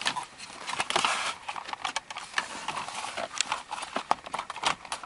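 Hard plastic centre-console and cup-holder trim of a BMW E39 clicking, knocking and rustling as it is handled and worked loose by hand: an irregular run of light knocks.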